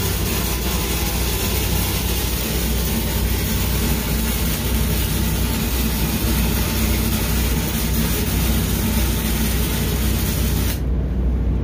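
E6010 stick electrode arc crackling and hissing steadily on a downhill root pass on steel pipe, over a steady low hum. Near the end the arc breaks off suddenly, leaving only the hum.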